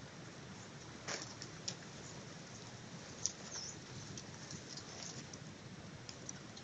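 Wild honeybees massed on an exposed comb, their buzzing a steady low hum, with a few sharp clicks, the loudest about three seconds in.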